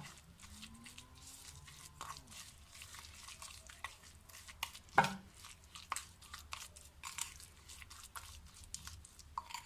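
A spoon stirring finely grated turnip mixed with honey and sugar in a bowl. It makes faint, irregular wet crunching and small clicks, with one sharper click about five seconds in.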